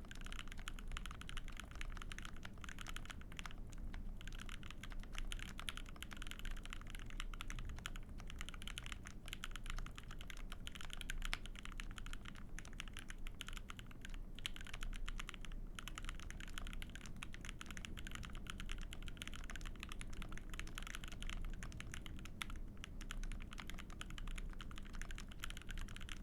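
Continuous typing on a KBDFans Maja mechanical keyboard with a brass plate, Thic Thock Konpeitou switches lubed with Krytox 205g0, and GMK Cafe keycaps. It makes a dense, steady stream of keystrokes.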